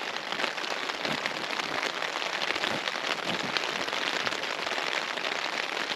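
Rain falling steadily on the flysheet of a Hilleberg Unna tent, heard from inside: a dense, even patter of many separate drops.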